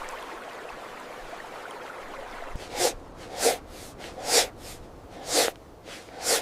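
Someone sniffing the air hard through the nose, about five sharp sniffs roughly a second apart starting midway, over a steady hiss.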